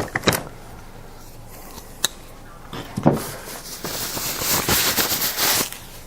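Packaging being handled in a cardboard box: a few sharp knocks, then about two seconds of crinkly rustling from about four seconds in.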